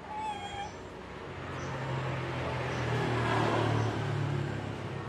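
A motor vehicle passes, its low engine hum swelling to a peak about three and a half seconds in and then fading. A brief high call with a clear pitch sounds at the very start.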